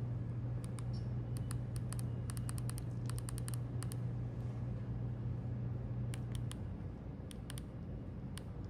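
Light, sharp clicks in quick runs, typical of buttons being pressed on a fan's control, over a low steady hum that fades out about two-thirds of the way through.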